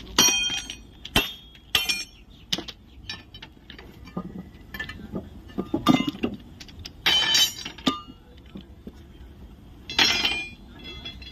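Steel tools clinking and ringing against a rail joint's fish plate bolts and nuts as the joggled fish plate is unbolted and taken off. There is a string of sharp metallic clinks, with a longer rattling clatter about seven seconds in and another near the end.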